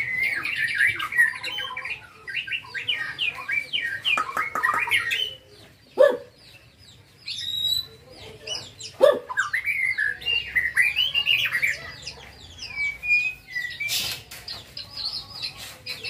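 Young white-rumped shama singing a varied song of rapid trills, gliding whistles and harsh notes, with two loud sharp falling notes about six and nine seconds in.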